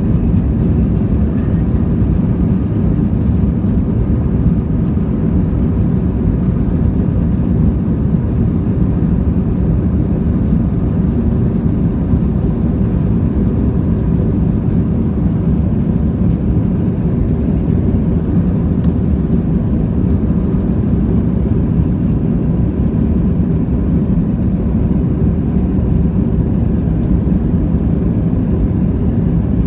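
Jet airliner engines running steadily at high power, a constant rushing roar heard inside the passenger cabin.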